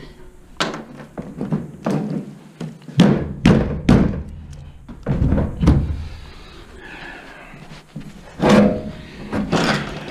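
A run of dull, irregular knocks and thunks, about a dozen, bunched in the first half, then a brief quieter stretch and a few more near the end.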